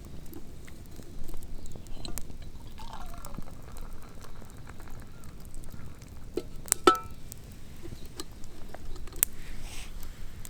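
Scattered small clicks and light crackling, with one sharp clink that rings briefly about seven seconds in and a faint short squeak about three seconds in.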